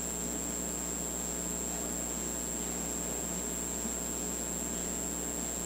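Steady electrical hum with a constant high-pitched whine above it, over an even background hiss; nothing starts or stops.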